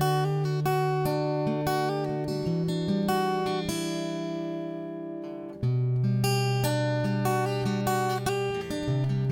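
Intro music: acoustic guitar picking and strumming chords over sustained bass notes.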